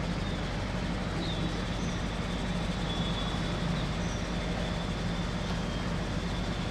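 Steady low mechanical drone with constant noise, unchanging in level, with a faint thin high whine over it.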